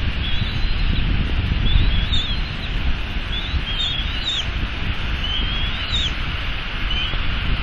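Bald eaglets giving short, high, wavering cheeps, about one every second and a half, while being fed. Under them runs a steady wind rumble on the microphone and the hiss of rain.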